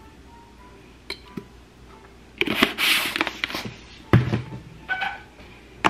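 Handling of a powder container and scoop at a kitchen counter: a few light clicks, about a second of rustling and scraping midway, then a couple of solid knocks on the counter.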